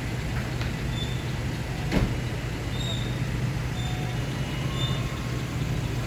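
A vehicle engine runs with a steady low hum amid street traffic, with one sharp short sound about two seconds in and a few faint high chirps later on.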